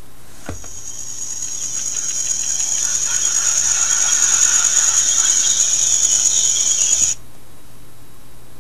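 Nature-sound recording played from the BlackBerry PlayBook's speaker by the Relaxbook Nature app: a high, shimmering insect-like chorus that fades in after a tap on the screen, grows louder for a few seconds, then cuts off abruptly about seven seconds in.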